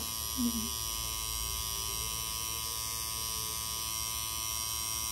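Pen-style tattoo machine buzzing steadily at an even pitch as its needle retouches a tattoo on a forearm.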